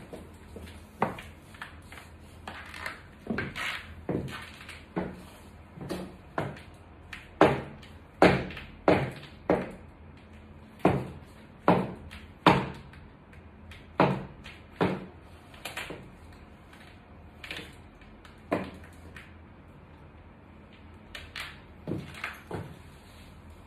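Footsteps of high-heeled stiletto platform boots on a ceramic tile floor: a run of sharp heel clicks, about one to two a second, easing off into a pause of a couple of seconds near the end before a few softer steps.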